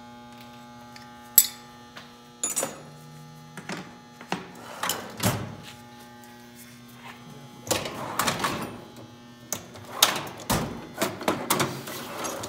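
Air tool on a black air hose run in several short bursts, with a sharp click about a second and a half in. A steady electrical hum underneath.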